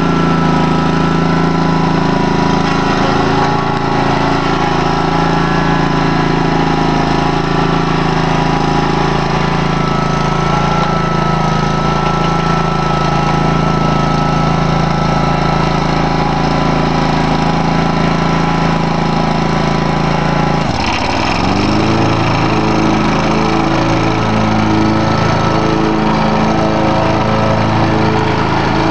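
Bunton 36-inch hydrostatic walk-behind mower's engine running steadily. About two-thirds of the way through its note dips suddenly, climbs back and settles into a different, pulsing drone.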